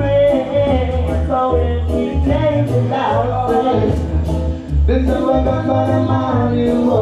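A sung record played loud over a sound system, with a heavy bass line, a vocal melody and a steady beat of hi-hat strokes.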